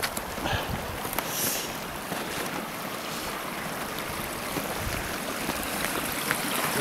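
Creek water running steadily through an open, unfrozen channel at a beaver dam, growing a little louder toward the end. A few soft crunches of footsteps in deep snow in the first two seconds.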